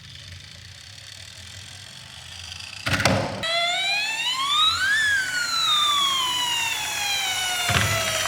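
A wailing siren, police-style: after a short burst of noise about three seconds in, its pitch rises for about a second and a half, then falls more slowly. Another short burst of noise comes near the end.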